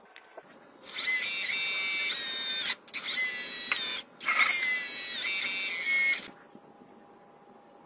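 Electric motor and hydraulic pump of a homemade RC excavator whining in three spells of about two, one and two seconds, the pitch stepping up and down as the arm is worked.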